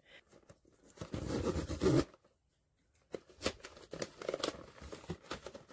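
Small cardboard blind box being opened by hand: flaps lifted, the paper contents rustling and sliding, then scattered light scratches and taps. About two seconds in, the sound cuts to dead silence for roughly a second.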